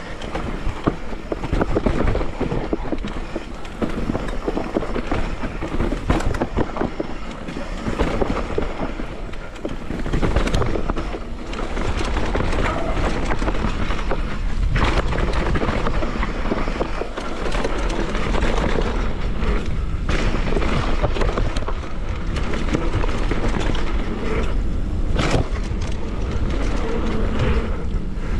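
Downhill mountain bike riding a dirt trail: a continuous rush of tyre and wind noise with many sharp knocks and rattles as the bike hits bumps. The rush becomes steadier about twelve seconds in.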